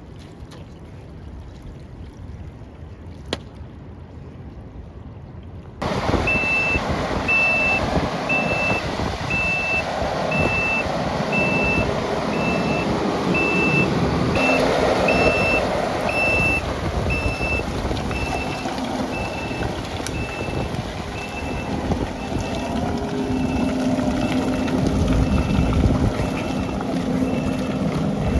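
Backup alarm of a piece of heavy construction machinery beeping steadily, a little more than once a second, over the engine running, starting abruptly about six seconds in; before that, fainter wind-like rumble with a single click.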